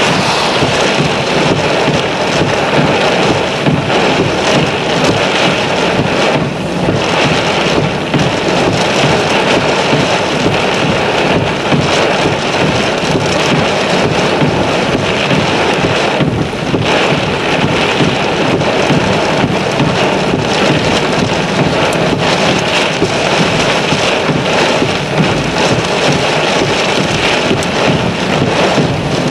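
Heavy thunderstorm rain falling hard with gusting wind, a loud steady rush with wind buffeting the microphone.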